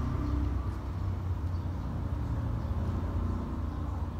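Low, steady rumble of an engine running.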